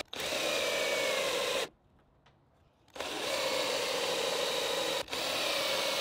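Cordless drill spinning a stepped pocket-hole bit through a pocket-hole jig into a wooden board, running with a steady whine in three runs: a pause of over a second after the first, then a short break about five seconds in.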